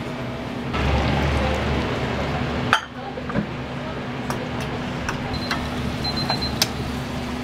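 Kitchen clatter: utensils and dishes clinking over a steady background hum and noise, with one sharp loud clack about three seconds in and smaller clicks after it.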